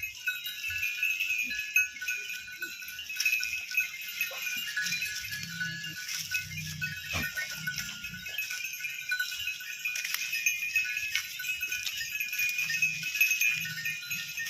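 Goats bleating on and off.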